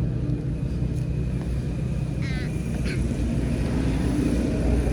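Steady low motor rumble, with a short high chirp about two seconds in.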